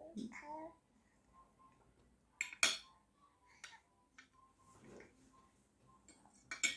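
Cutlery clinking against a plate a few times during a meal at the table, the sharpest clink about two and a half seconds in.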